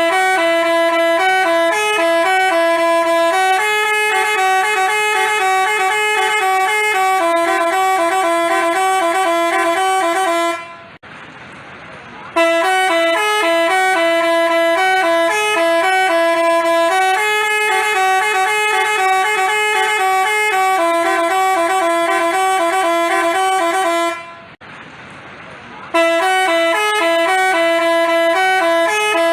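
Telolet Basuri musical bus horn playing a tune of stepping notes, sounded in long phrases with two short breaks of a second or two between them.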